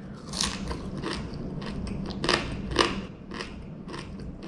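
Close-up crunching and chewing as a man bites through the tail and small bones of a deep-fried crappie. It comes as a run of short, irregular crackles, the loudest two a little past the middle.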